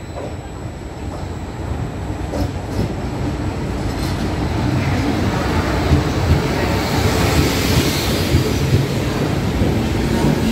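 ETR 500 Frecciarossa high-speed electric train pulling into the platform, its rumble growing louder as the power car and coaches run past close by.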